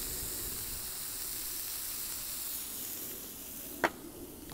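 Burger patties and bacon sizzling on a hot Blackstone flat-top griddle: a steady hiss that fades about three seconds in. A single sharp click comes near the end.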